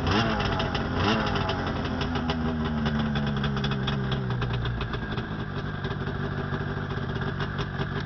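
Two-stroke Arctic Cat snowmobile engine running, blipped twice on the throttle near the start and then settling back toward idle, with its throttle safety switch bypassed. Near the end the kill switch is pressed and the engine begins to shut off.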